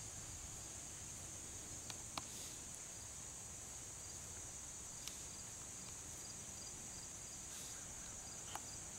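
A steady, high-pitched chorus of insects chirring, with a few faint clicks scattered through it.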